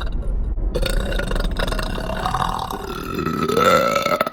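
One long deliberate burp, starting under a second in, rising in pitch and getting louder toward the end before cutting off sharply.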